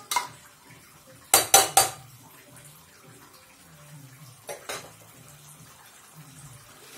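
Metal spatula clanking and scraping against the inside of a metal pressure cooker while stirring chunks of papaya: three sharp clanks in quick succession about a second and a half in, then two lighter knocks a few seconds later.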